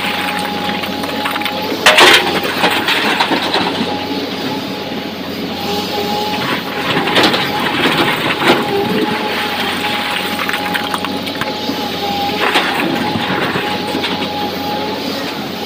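SANY excavator running under load, its engine and hydraulics droning with a steady whine, while the bucket digs through blasted quarry rock. Rock clattering and scraping against the steel bucket, with the loudest crash about two seconds in and more around seven to nine seconds and again near twelve seconds.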